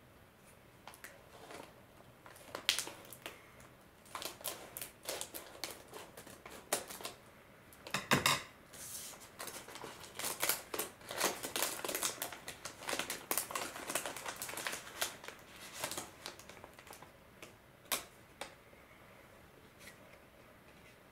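Scissors snipping open a plastic furikake packet and the wrapper crinkling as it is handled and the bonus sticker pulled out: a dense run of sharp snips and crackles, busiest in the middle, thinning out near the end.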